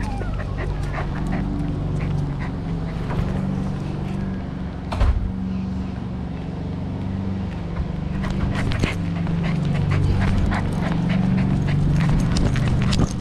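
A corgi panting right at the microphone, with many scattered sharp clicks and a louder knock about five seconds in.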